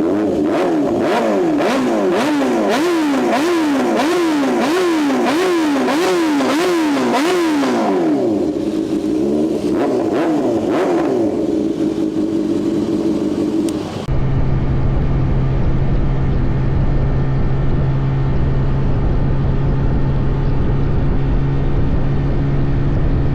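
Sport-bike inline-four engine revved in quick, evenly repeated blips, its pitch rising and falling about twice a second, then settling to a steadier high idle. About 14 s in, the sound cuts abruptly to a different steady low drone.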